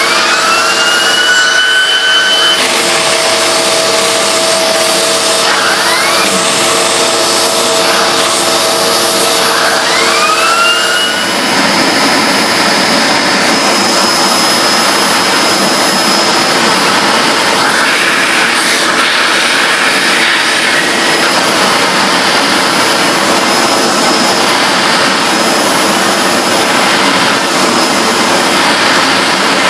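Hoover Globe bagless vacuum cleaner running with a high-pitched whine. Its pitch rises twice in the first few seconds and again around ten seconds in, then the sound turns rougher and rushing, with less steady whine, for the rest of the time.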